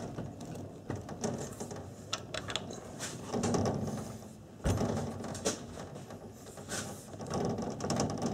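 Metal scraping and clicking as an AR-15 barrel is twisted and pushed by hand into the front of the upper receiver to line up and seat its alignment pin, with one sharp knock about halfway through.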